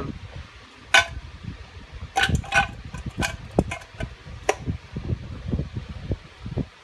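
Metal clicks and knocks as a Saginaw power steering pump body is pushed down into its reservoir can, with low bumping and handling noise between them; the sharpest knock comes about a second in.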